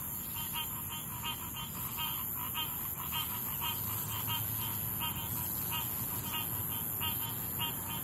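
Night chorus of tree frogs calling in short repeated notes, two or three a second, over a steady high-pitched insect drone from crickets and cicadas.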